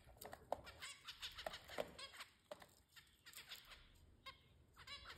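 Zebra finches giving short, faint nasal calls, one after another several times a second.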